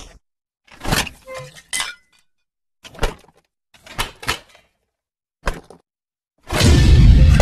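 Cartoon sound effects: a string of short clattering, breaking-like knocks and scrapes with silent gaps between them. Then a loud burst of sound comes in about 6.5 seconds in and carries on.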